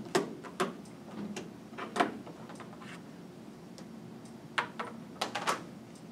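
Several scattered clicks and knocks, objects being handled and set down on a table, the loudest about two seconds in, over a faint room hum.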